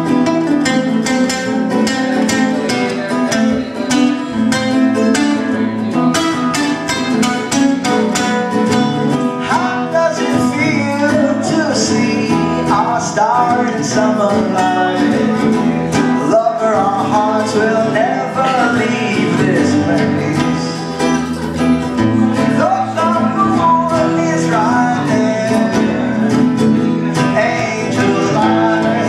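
Two acoustic guitars strummed together in a live duo, with a man's voice singing over them from about ten seconds in.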